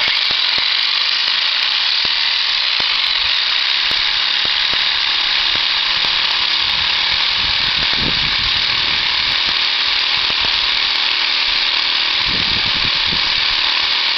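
A handheld power tool runs continuously and steadily, cutting through steel weld on a Bobcat skid-steer's Bobtach attachment plate to free the welded part.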